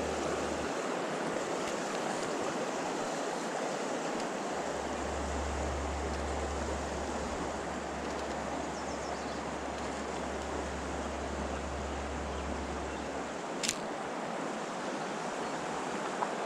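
Steady rush of a mountain river's flowing water, with one short sharp click near the end.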